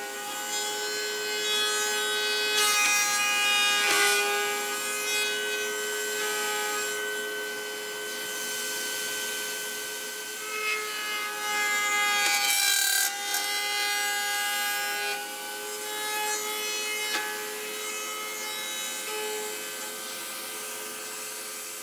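Router table running with a steady whine as a V-groove bit cuts into wooden drawer slides fed along the fence. The cutting noise swells and eases with each pass.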